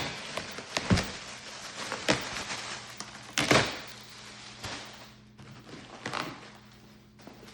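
Cardboard box and packaging being handled during an unboxing: several knocks and thuds with rustling, the loudest about three and a half seconds in, dying down near the end.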